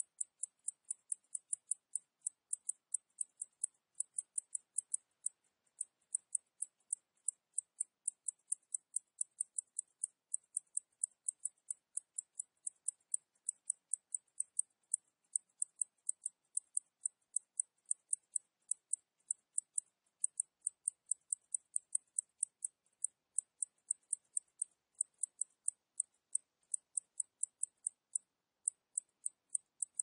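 Cicadas calling in a steady train of short, high-pitched chirps, about four a second, with a brief pause about six seconds in.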